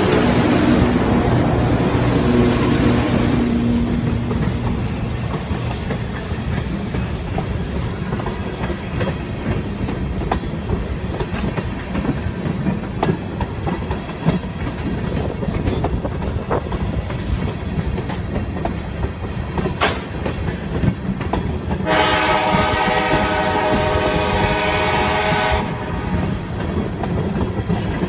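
Diesel-hauled freight train passing close by: the locomotive's diesel engine rumbles past at the start, then tank cars roll by with a steady rumble of wheels on rail and scattered clicks over rail joints. Near the end a sustained, many-toned sound rings out for about four seconds.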